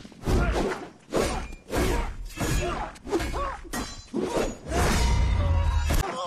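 Film fight sound effects from a spear duel: a quick run of weapon swings whooshing and hard hits landing about once a second, with the fighters' effort grunts between blows. A heavy low rumble comes in near the end.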